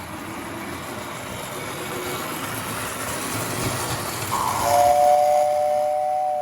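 Post-war Lionel O gauge steam locomotive running on tubular track. About four and a half seconds in, its motor-driven whistle sounds a steady two-tone note for about two seconds, louder than the running.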